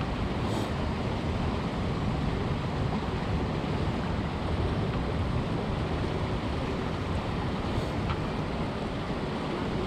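Steady rush of fast-flowing river water, with wind buffeting the microphone.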